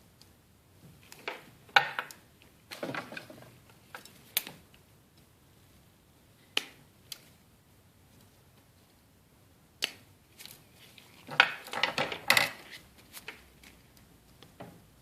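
Irregular light clicks, taps and short scrapes of small hand tools being handled while soldering a solar cell. They come in two busy clusters, one about a second in and one about two thirds of the way through, with a few lone ticks between.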